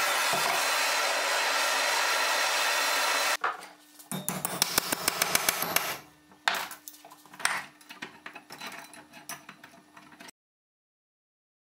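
A power tool's motor runs steadily and cuts off about three and a half seconds in. Then comes quick, rasping hand abrasion on a steel rod clamped in a bench vise: a loud flurry of strokes, then lighter, scattered ones. The sound drops out completely about ten seconds in.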